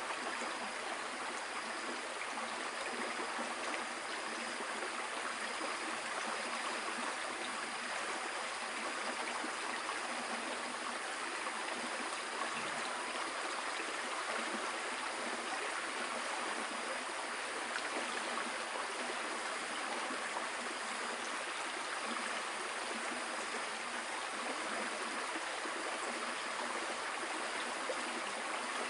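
Steady rush of flowing water, like a stream, with no change in level.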